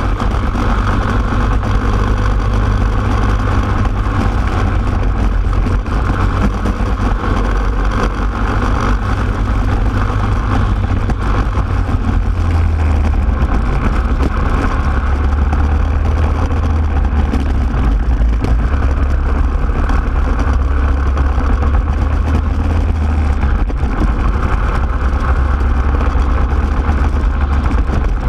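Racing go-kart engine running hard through a lap, picked up close by an onboard camera: a loud, continuous engine note with small shifts in engine speed as the kart goes through corners and straights.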